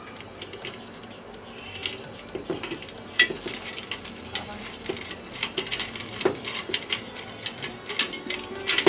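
Pliers working a small nut loose on an electric hotplate's heating-element terminal: irregular metallic clicks and scrapes that begin about two seconds in, with one sharp click a little after three seconds.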